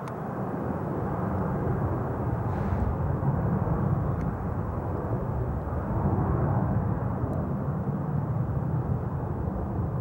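Airbus A320-232's twin IAE V2500 turbofan engines at takeoff thrust during the takeoff roll: a deep, steady rumble that grows louder over the first couple of seconds and then holds.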